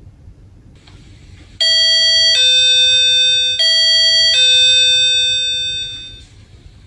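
Electronic front-door chime sounding its two-note ding-dong twice, a higher tone falling to a lower one each time, with the last note ringing out and fading.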